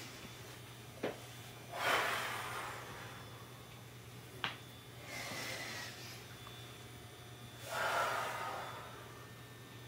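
A woman taking slow, deep, audible breaths in and out, the loudest about two seconds in and about eight seconds in, as part of a deep-breathing warm-up. Two short clicks come about one second and four and a half seconds in.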